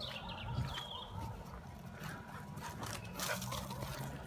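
Woodland ambience: a low steady rumble with a short bird chirp near the start and a few faint rustles.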